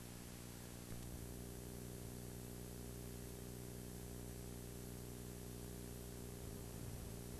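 Steady electrical hum with tape hiss from video-tape playback that carries no programme sound. The hum gets a little louder about a second in.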